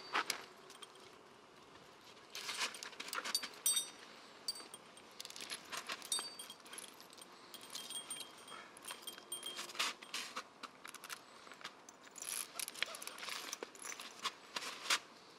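The metal fittings of a dog's guide harness and chain collar jingle and clink in scattered runs as the harness is fastened on. A small bell on the harness rings briefly now and then.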